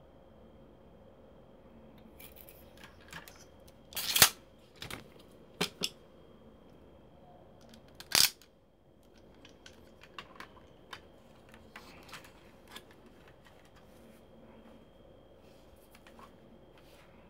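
Sharp clicks and clacks of hard plastic Transformers toy parts being handled and fitted together: two loud snaps about 4 and 8 seconds in, with a few lighter clicks between and after.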